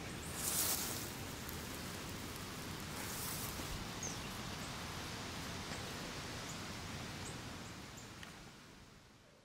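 Steady outdoor background noise with brief rustling in the grass about half a second in and again around three seconds; the sound fades out near the end.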